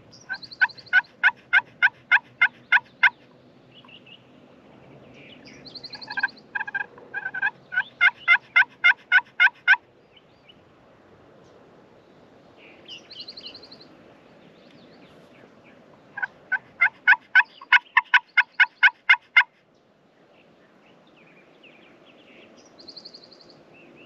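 Turkey yelping in three long runs of loud, evenly spaced yelps, about four a second, with short high buzzy notes between the runs.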